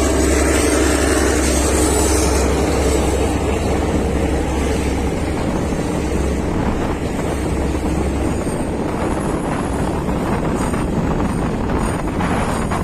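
Diesel engine of a Sri Lanka Railways Class S10 diesel multiple unit running steadily with the train under way, a loud low rumble that eases off about eight seconds in.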